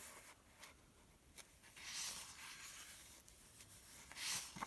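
Pages of a recipe book being turned by hand: soft paper rustling and sliding, once about two seconds in and louder near the end.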